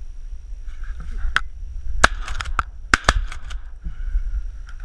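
Shotgun shots fired at flying geese: sharp reports about two and three seconds in, the loudest of several cracks.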